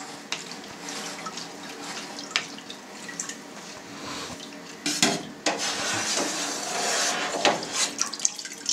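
Whey dripping and splashing as a slotted plastic skimmer scoops cheese curds out of a pan of whey and tips them into a plastic cheese mould, with light knocks of the skimmer. It gets louder about five seconds in, with the next scoop from the whey.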